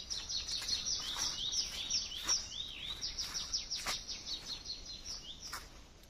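Songbirds singing: a fast, dense run of high chirping and twittering notes that thins out near the end.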